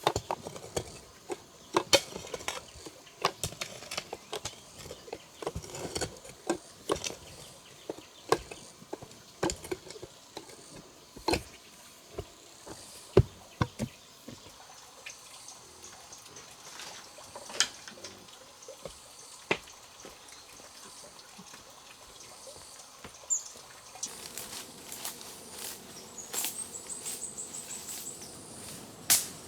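Irregular sharp knocks and taps, coming thick at first and thinning out, then insects chirping in high steady trills near the end.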